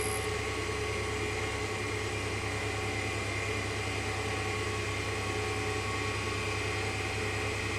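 D-bit cutter grinder running, its motor and spinning grinding wheel giving a steady hum with a few faint whining tones.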